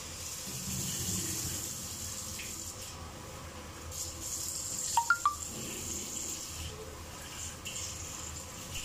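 Water running from a kitchen tap into a metal pot at the sink, swelling and easing off, with a few quick metallic clinks about five seconds in.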